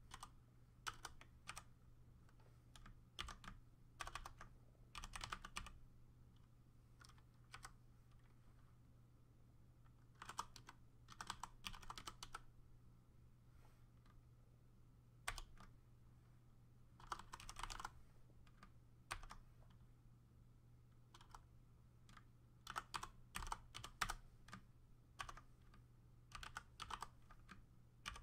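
Typing on a computer keyboard: quiet clusters of keystrokes with short pauses between them.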